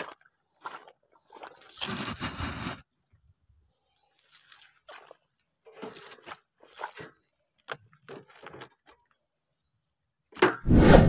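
Handling noise as a net bag of catfish and a plastic bucket are loaded into a scooter's wire front basket: scattered crunches, scrapes and rattles, a loud rustle about two seconds in, and a loud bump near the end.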